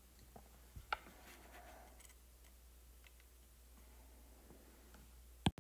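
Near silence: faint room tone with a low steady hum, a couple of soft clicks about a second in and one sharp click near the end.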